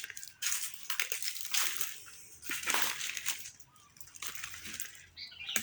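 Vegetation rustling and crunching in several irregular bursts of a second or so, with quieter gaps between them.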